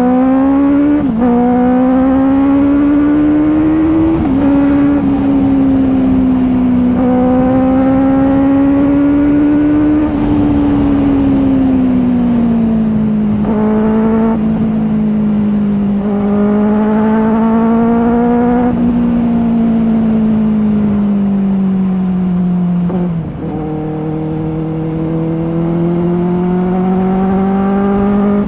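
Benelli TNT 600i inline-four engine through dual SC Project slip-on exhausts, heard from the rider's seat while riding. The note climbs and drops sharply at gear changes about one and four seconds in, then rises and falls gently at road speed, with another sharp drop about twenty-three seconds in.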